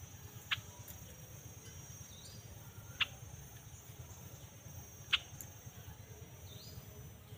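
Insects, crickets by their steady high drone, chirring without a break. Over it come three short, sharp calls about two and a half seconds apart, and two faint chirps.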